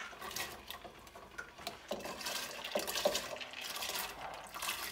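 Chana dal (split chickpeas) being scraped by hand out of a stainless steel bowl into a steel pot of water: the grains slide and rattle against the metal, with light clinks and small splashes.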